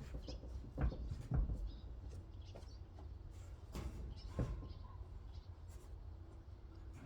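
A few dull knocks and scrapes, about four in the first four and a half seconds, over a low steady rumble, with faint bird chirps.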